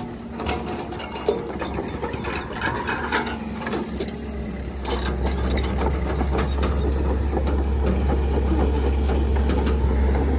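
Heavy diesel engine of construction machinery running steadily with a deep rumble, with scattered metallic clanks and knocks in the first half; it grows a little louder about halfway through.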